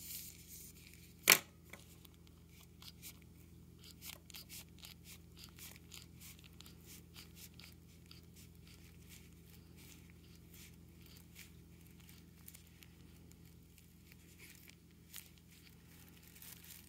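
Faint crinkling of the thin plastic sleeve of a Halyard closed suction catheter as fingers work the catheter forward through it. There are many small crackles, denser in the first half, and one sharp click about a second in.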